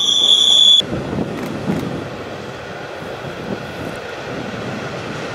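Wheels of a passing Zentralbahn train squealing with a loud, steady high-pitched screech that cuts off abruptly under a second in. It gives way to the low rumble of a distant train with wind noise on the microphone.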